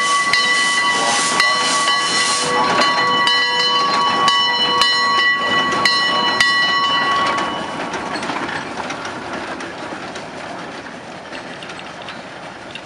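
Heisler geared steam locomotive pulling out: steam hissing from the engine, with a steady multi-note steam whistle sounding until about seven seconds in and quick rhythmic clanks as it passes. Then it fades as the train moves away.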